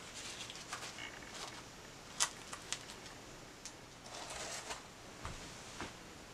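Quiet handling of a fried bake on a tray: a few sharp light clicks and taps, the loudest about two seconds in, and a soft crackling rustle of the crisp crust around four seconds in.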